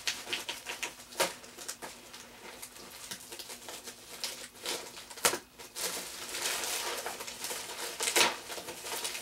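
Plastic shipping bag crinkling and rustling as it is handled and cut open with a large knife, with irregular sharp crackles; the loudest come about a second in, about five seconds in and near the end.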